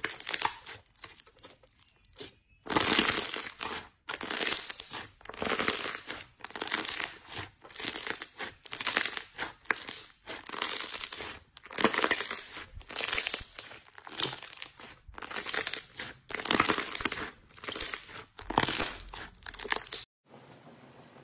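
Clear slime being pressed, folded and squeezed by hand, crackling and popping in short bursts about once a second as trapped air is squished out.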